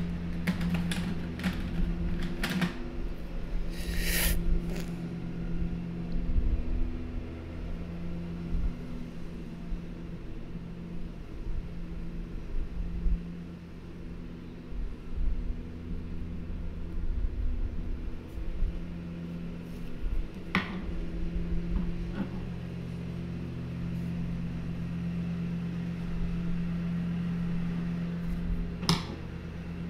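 A steady low machine hum, such as a fan or appliance motor in the room, with a few short clicks or taps: one about four seconds in, a couple around twenty seconds, and two near the end.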